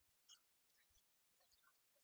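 Near silence, with only very faint, choppy fragments of sound.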